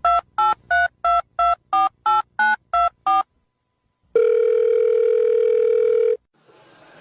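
Touch-tone telephone dialing: ten short two-tone keypad beeps, about three a second, as a number is dialed. After a pause, one steady tone of about two seconds follows, like a ringing tone on the line.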